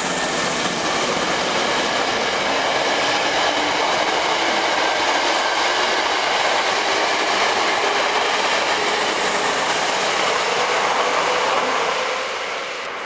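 Hankyu 5300 series electric train pulling away from a station, with the whine of its Toyo Denki traction motors and the clatter of its wheels as the cars pass close by. The sound falls away about twelve seconds in.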